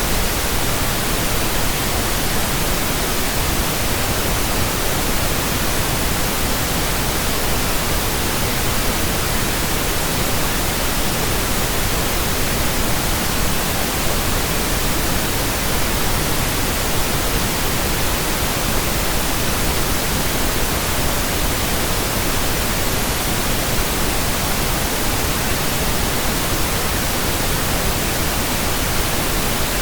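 Steady synthetic pink noise: an even, unchanging hiss spread across all pitches.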